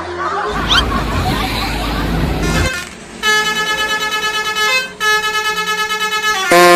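A vehicle rumbles by, then a bus's multi-tone 'telolet' horn sounds in two long blasts with a pulsing tone, changing pitch near the end.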